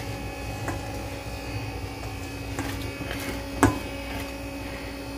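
Whisk stirring brownie batter in a stainless steel mixing bowl, clinking against the metal a few times, loudest about three and a half seconds in, over a steady electrical hum.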